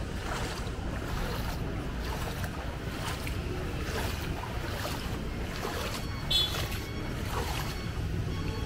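Low, steady rumbling outdoor noise of wind buffeting the microphone. A brief high-pitched squeal sounds about six seconds in.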